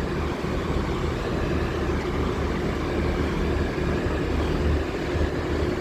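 Train engine idling at the station: a steady low rumble with a constant held tone.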